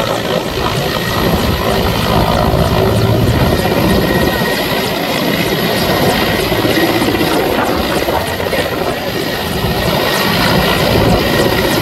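Mi-17 transport helicopter hovering low overhead, its rotor and turbine noise loud and steady.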